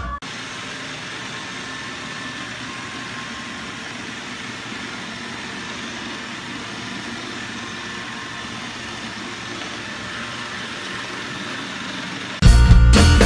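Robot vacuum cleaner running: a steady whirring hum with a faint whine. Loud music with drums and guitar cuts in suddenly near the end.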